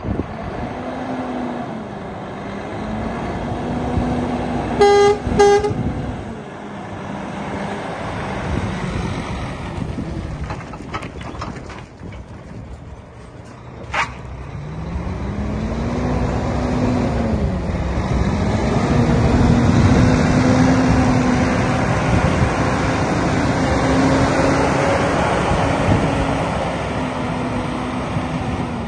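Volvo FM 420 8x4 tipper's 13-litre six-cylinder diesel engine driving slowly, its pitch rising and falling as it works through the gears. Two short horn toots come about five seconds in.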